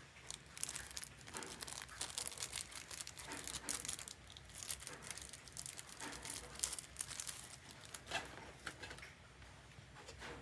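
Small, thin clear plastic bag crinkling in quick crackles as fingers work it open to get at a tiny accessory. The crackling dies down near the end.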